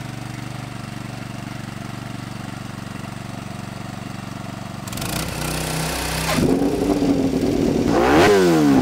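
Honda RC211V MotoGP bike's 990 cc V5 four-stroke engine idling steadily. About five seconds in its note rises and holds higher, and near the end sharp throttle blips each climb and fall back quickly.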